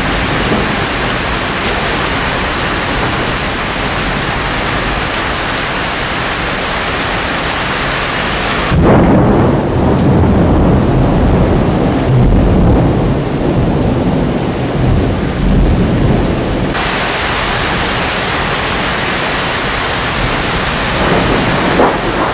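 Thunderstorm: heavy rain hissing steadily, then about nine seconds in a loud clap of thunder that rumbles deep for about eight seconds before the rain alone returns.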